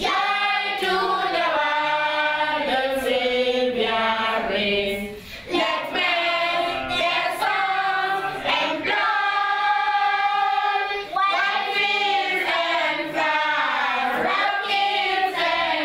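A class of schoolchildren singing together without accompaniment, holding long notes, with a brief pause about five seconds in.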